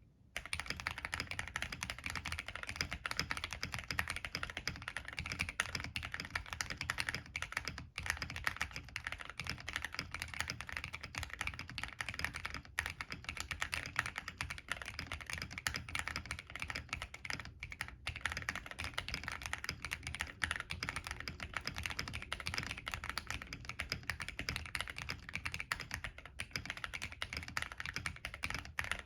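Continuous fast typing on a plateless MK870 tenkeyless mechanical keyboard with NK Cream linear switches and PBT Cherry-profile keycaps, with Cherry clip-in stabilizers. The typing breaks off briefly a few times.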